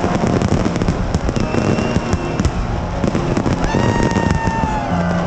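New Year's fireworks display: a dense, continuous barrage of cracks and bangs from shells bursting overhead. Near the end a held whistling tone drops in pitch.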